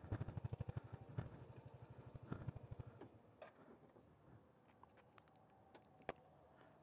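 Motor scooter engine idling with a rapid, even putter, then switched off about three seconds in, leaving only a few faint ticks.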